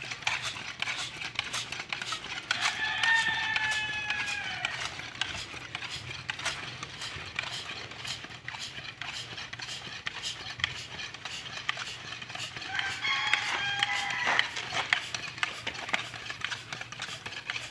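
Hand-operated bicycle pump forcing air through its needle into a corked plastic bottle, its strokes clicking about twice a second as pressure builds inside the bottle. Two drawn-out high-pitched cries of about two seconds each stand out over the pumping, near the start and about two-thirds through.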